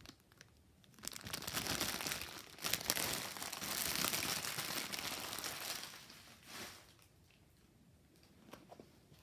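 Plastic packaging and bags crinkling as they are handled for about five seconds, then a brief rustle and quieter handling near the end.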